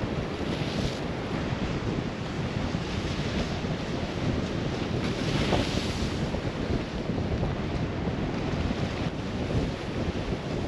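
Wind buffeting the microphone over surf washing against the rocks, a steady rush that swells twice as waves break.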